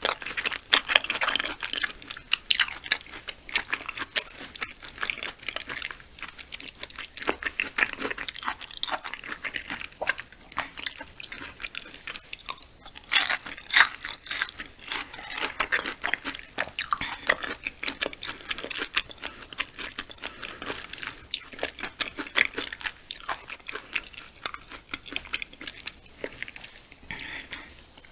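Close-miked chewing of raw yellowtail sashimi: continuous mouth and chewing sounds with many small sharp clicks.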